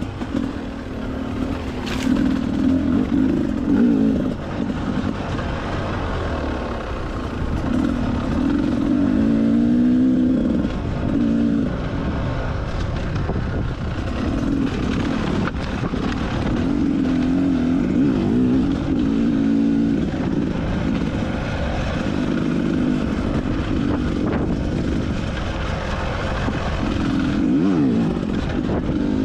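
Enduro dirt bike engine running under load on a trail, its pitch climbing and dropping repeatedly as the throttle is opened and closed, over a steady rumble of riding noise.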